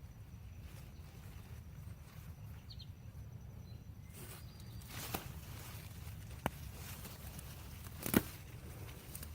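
Hand digging of potatoes in garden soil: a few sharp knocks and scrapes over a low steady rumble, the loudest knock near the end.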